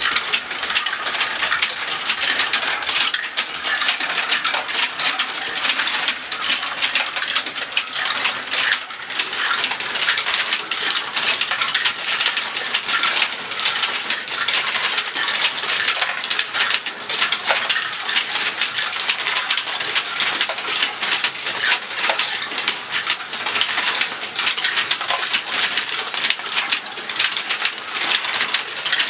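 LEGO Great Ball Contraption machine running: a steady, dense clatter of many small plastic balls rattling and dropping through its tracks, ball elevator and flip-flop splitters.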